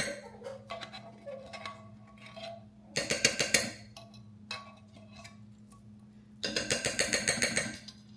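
Rapid clicking from kitchen utensils in three bursts of about a second each, over a faint steady hum.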